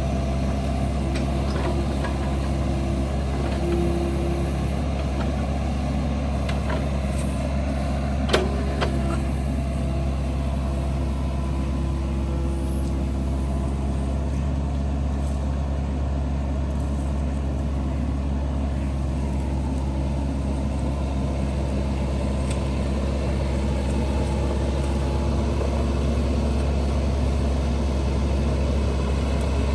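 Excavator engine running steadily under work, with one sharp knock about eight seconds in.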